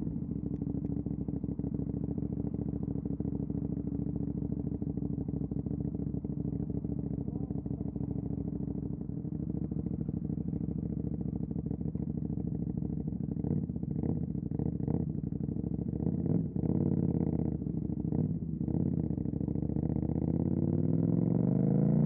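2018 KTM 790 Duke parallel-twin through an Austin Racing RS22 exhaust, running steadily at low, even revs. Near the end it rises in pitch and loudness as the bike accelerates.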